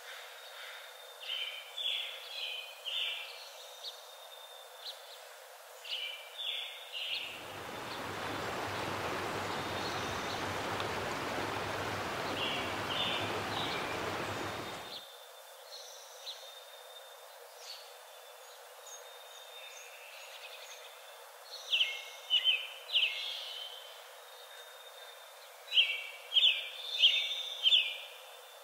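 Outdoor nature ambience of small birds chirping in short clusters of quick notes, with a stretch of steady rushing water in the middle.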